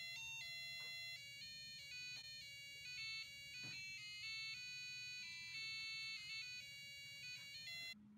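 A simple electronic melody of high, beep-like notes in a quick stepped tune, like an alarm-clock or ringtone melody, cutting off abruptly near the end.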